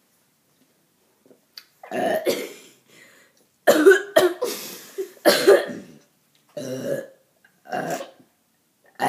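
A run of about six short throaty burps and coughs from girls who have been gulping carbonated Diet Pepsi, starting about two seconds in.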